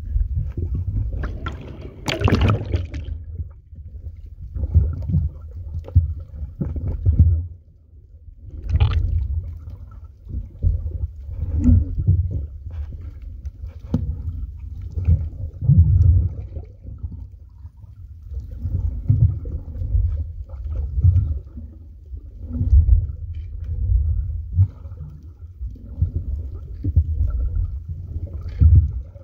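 Water sloshing and rumbling against a phone's microphone held underwater, muffled and low, swelling and fading about every two seconds, with a few brief splashy bursts.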